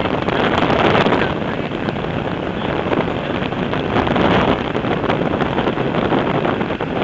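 Loud, steady rush of wind over the microphone of a camera held out from a tandem paraglider in flight, rising and falling slightly.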